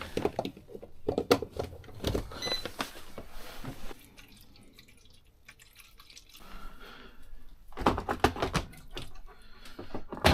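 Kitchen things, a kettle among them, being handled and set out, with clatter and knocks in two bunches and water dripping. A short high beep sounds about two and a half seconds in.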